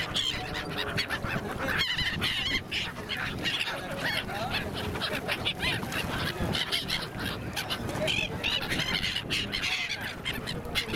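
A large flock of migratory gulls calling, many short cries overlapping continuously.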